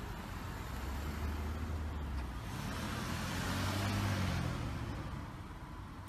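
Cars driving past on a street: engine hum and tyre noise, with one car going by loudest about three to four seconds in, its engine note dropping as it passes before it fades away.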